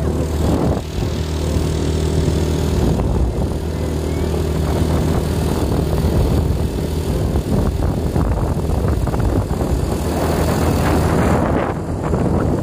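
Motorcycle riding along a road: a low steady engine hum under a constant rush of wind and road noise.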